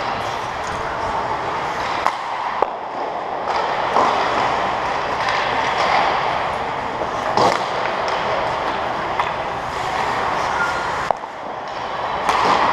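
Ice hockey skates scraping and carving on the rink ice, a steady hiss, with a few sharp clacks of sticks and puck on the ice and boards.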